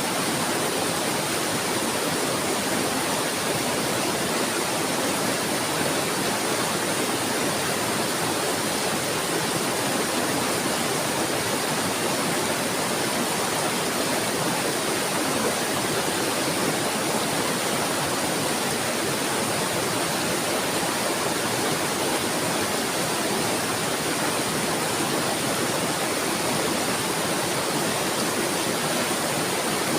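Flowing water rushing steadily and evenly, with no birdsong or other events standing out.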